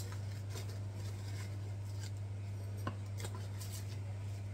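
A spoon scooping sugar from a bag into a mug, with light scrapes and a few small clicks, over a steady low hum.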